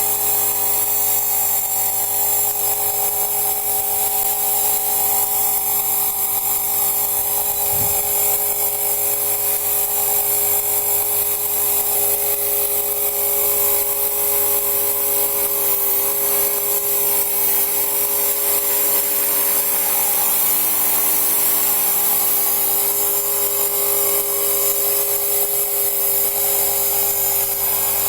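Motor and propellers of a small radio-controlled aircraft in flight, making a steady, even machine whine of several tones throughout. There is a brief low thump about 8 seconds in.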